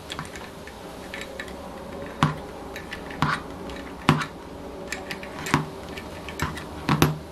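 Small open-end wrench clicking against the metal intake pipe fittings of an OS FF-240 Pegasus model engine as the nuts are worked loose: a string of sharp, irregular clicks, roughly one a second.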